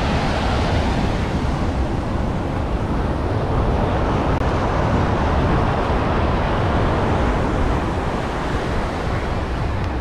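Ocean surf breaking and washing up on a sandy beach, a steady rushing that swells toward the middle, with wind buffeting the microphone.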